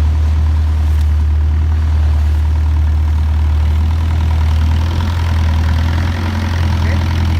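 Tour boat's engine running steadily under way, a constant low hum.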